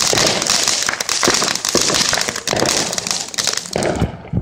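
Homemade firework fountain spraying sparks with a loud hiss and dense crackling, which dies down near the end as the fountain burns out.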